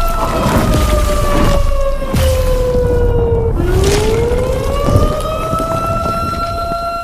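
A siren wailing on one pitch, sagging lower over the first few seconds, then climbing back up to its starting pitch. Under it runs a loud low rumble with several thuds.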